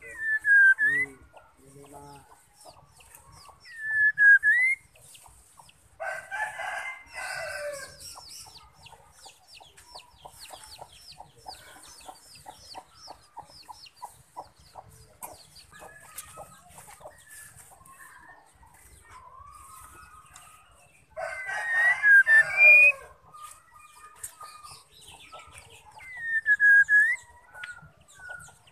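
White-rumped shama calling, sold as a female's call: short swooping whistles that dip and rise again, near the start, about four seconds in and near the end, with a rapid run of fine ticking notes in between. Two loud, harsh calls of about two seconds each come about six and twenty-one seconds in.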